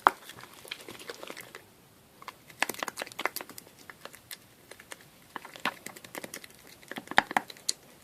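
Sticky slime of clay and glue being stirred in a container, making irregular clicking and crackling in bursts with short pauses. The mixture is still wet and has not yet come together.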